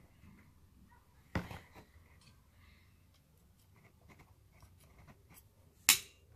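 Small clicks and scratches from handling a Mendoza derringer air pistol, with a sharp click about a second and a half in and a louder, sharper snap near the end.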